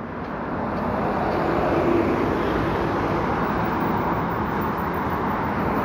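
Street traffic noise: a vehicle running close by, swelling up over the first second or two and then holding steady.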